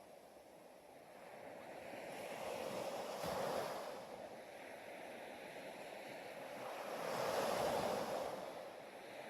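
Ocean waves washing in and ebbing, a rushing sound that swells twice, about a third of the way in and again near the end.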